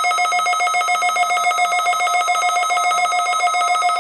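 NOAA weather radio alert tone sounding for the weekly test: a loud, steady electronic tone with a fast, even pulse.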